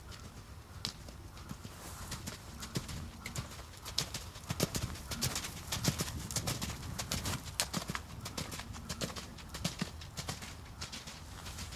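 Horse cantering on a dirt arena: a running series of hoofbeats, loudest in the middle as the horse passes close by.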